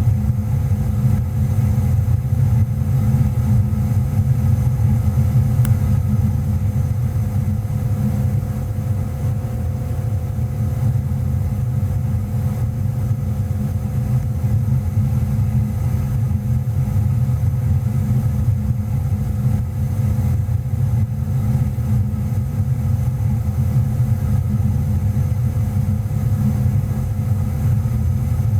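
Goodman GMNT080-4 gas furnace running with a steady low rumble.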